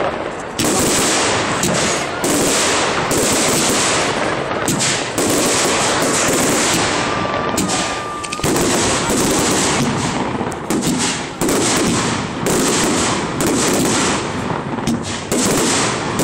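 Fireworks display: a rapid, nearly continuous run of loud bangs, each followed by a crackling hiss, about one or two a second. A brief thin whistle sounds around the middle.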